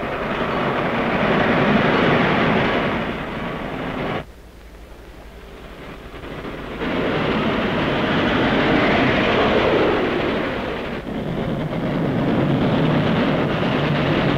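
Steam locomotives running hard, a dense rushing train noise that swells and fades. It drops off suddenly about four seconds in and comes back loud about three seconds later, changing again with each new shot.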